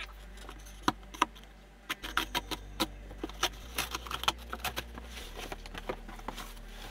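Large cardboard box being opened and unpacked: flaps flexing and packing material rustling and scraping as a run of irregular clicks and crackles. A couple of sharp clicks come about a second in, and the handling gets busier after about two seconds.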